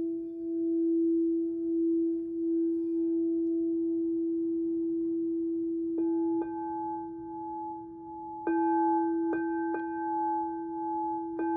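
Singing bowls ringing: one steady, wavering low tone, joined by higher bowl tones struck about six seconds in and several more times in the second half.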